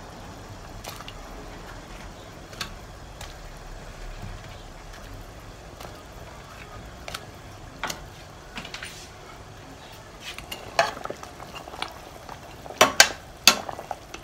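Red chile sauce simmering in a stainless steel pot with a low, steady bubbling hiss, and scattered soft clicks as patties are set into it. Near the end a spoon stirs the pot, knocking and scraping against it a few times.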